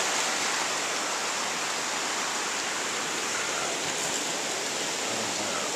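Shallow mountain creek rushing over rocks, a steady wash of running water.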